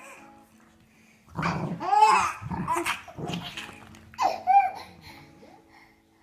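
Dog barking in short bursts while playing with a toy: a run of barks from about a second and a half in, and two more just after four seconds.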